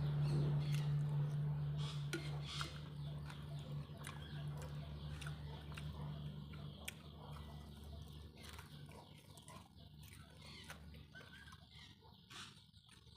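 A steady low hum that slowly fades away over about ten seconds, with birds calling and scattered light clicks.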